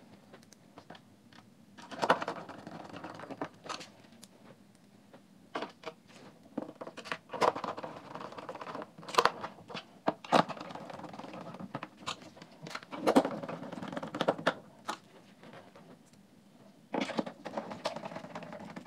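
Small screws being driven back into a plastic speaker housing with a screwdriver: short bursts of scraping and clicking, repeated several times, with quieter gaps between.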